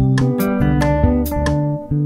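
Instrumental background music led by plucked guitar with bass notes and a steady beat.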